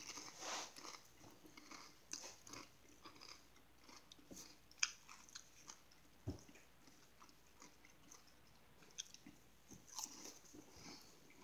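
A person chewing and biting crunchy lime-and-jalapeño chips topped with tuna, close up. Faint crunches and mouth sounds come and go, with one sharper crunch about five seconds in.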